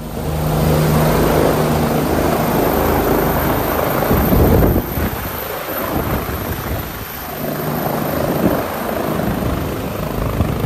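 Helicopter running close by: a loud, steady rush of turbine and rotor noise, with a low hum for the first few seconds.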